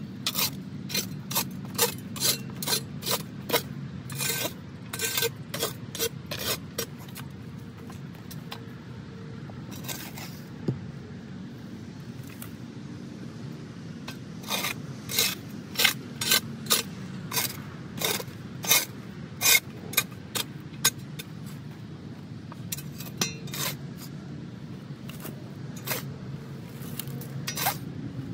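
Metal shovel blade scraping across loose soil on the floor of a raised garden bed. The short scrapes come in runs, about two a second, with a lull in the middle.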